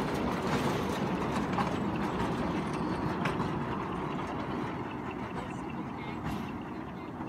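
Toy train running on its narrow track: a steady low rumble with a rattle of its carriages, easing off slightly near the end.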